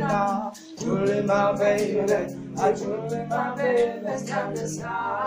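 A group of male voices singing together in harmony, lower voices holding long notes under the lead line. The singing breaks off briefly about half a second in, then carries on.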